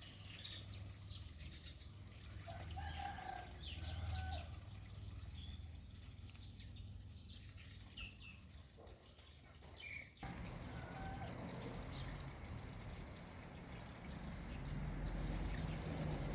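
Birds and chickens calling in short, scattered calls. About ten seconds in, a steady sound of running water starts abruptly and continues under them.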